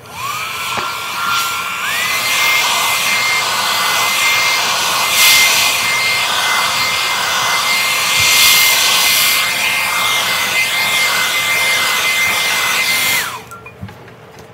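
Handheld hair dryer blowing hair, loud and steady. Its whine rises as it spins up and steps up to a higher pitch about two seconds in. It winds down when it is switched off near the end.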